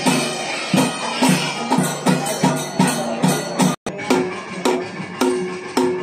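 Kerala temple percussion: drums and hand cymbals playing a steady beat of about three strokes a second, each stroke a low thump with a sharp metallic clash. The sound drops out for an instant a little past the middle.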